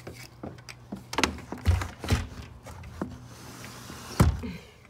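Window blinds and a sliding window frame being handled: plastic slats rattling and several sharp knocks, the loudest near the end.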